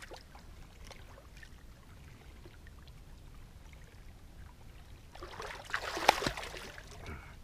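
A large catfish thrashing in shallow water, splashing hard for about a second and a half with one loud slap in the middle, about five seconds in.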